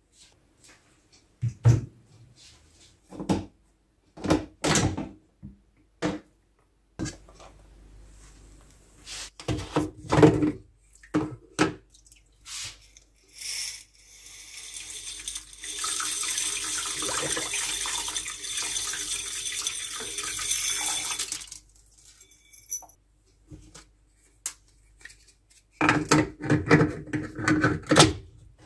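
Dishwasher racks and plastic parts clattering and knocking, then a steady pour into the dishwasher's salt reservoir lasting about seven seconds. Near the end come a few quick clinks and scrapes as the reservoir's plastic cap is handled.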